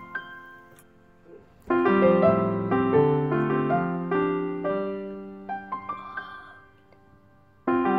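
Background piano music: notes and chords struck and left to fade away, with a short pause about a second in and another near the end, each followed by a new phrase.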